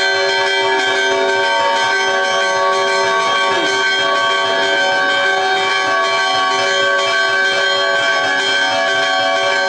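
Church bells pealing continuously, many tones overlapping without a break.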